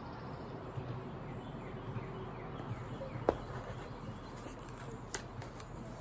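Quiet outdoor background with faint bird chirps, broken by a single sharp knock about three seconds in and a few light clicks near the end.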